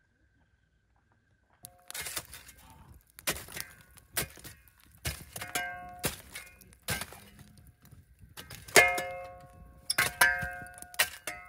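A metal tool striking and scraping through the coals and stones of a campfire ring as the fire is being doused. It starts about two seconds in with a string of irregular clanks, many of them ringing briefly.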